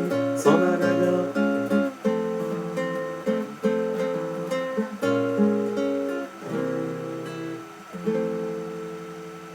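Instrumental close of a song: acoustic guitar and other plucked strings playing chords at a steady pulse, ending on a final chord that rings out and fades.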